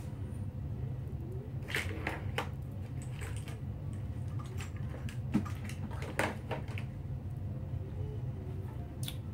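Scattered clicks, rattles and light knocks of plastic parts and wiring being handled and moved about, the loudest knock about five and a half seconds in, over a steady low hum.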